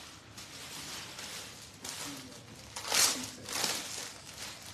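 Rustling handling noise from clothes and their packaging being moved about: a few short crinkly bursts, the loudest about three seconds in.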